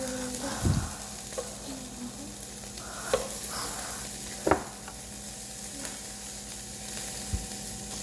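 Pork belly sizzling steadily on a grill, with a few sharp clicks and knocks, the loudest about four and a half seconds in.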